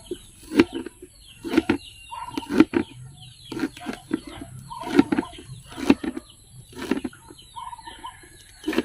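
Taro stalks being chopped with a blade on a wooden surface, one knock about every second. Chickens cluck in short calls between the chops.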